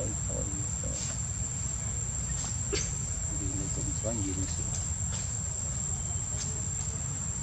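Steady high-pitched drone of insects, unbroken throughout, over a low outdoor rumble, with a few faint wavering voices and light ticks.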